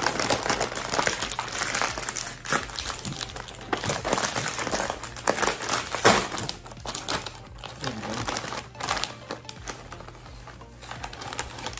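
A Doritos chip bag crinkling and crackling as it is handled and pulled open, with the loudest crackle about six seconds in.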